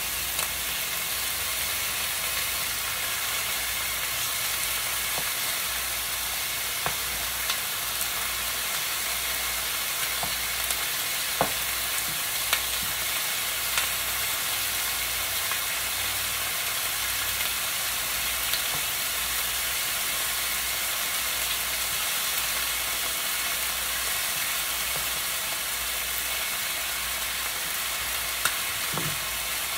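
Chicken pieces frying in hot oil in a pan, a steady sizzle, with a few light clicks scattered through it.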